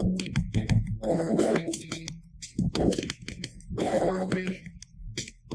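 A man's voice, muffled and distorted, in short vocal bursts about once a second, with scattered sharp clicks between them.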